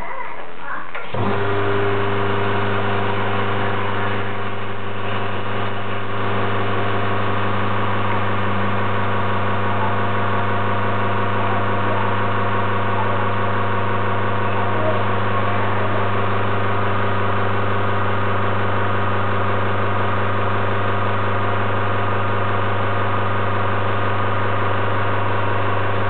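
Izzo Alex MK II espresso machine's vibratory pump switched on about a second in, then humming steadily as it drives water through the coffee to pull an espresso shot.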